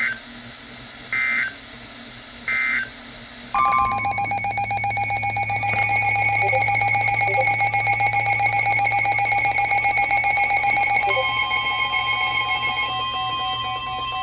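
Three short bursts of digital data tones, the EAS/SAME end-of-message code that closes a NOAA Weather Radio warning. About three and a half seconds in, a loud electronic alarm starts: several beep tones pulsing rapidly together, with a steady tone added about eleven seconds in.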